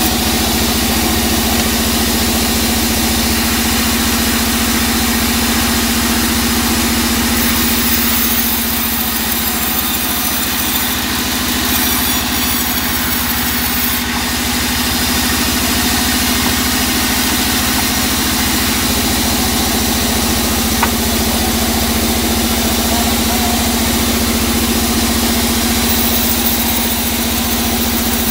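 Sawmill band saw running steadily as it rips a teak log lengthwise: a constant hum of the machine under the noise of the blade cutting through the wood.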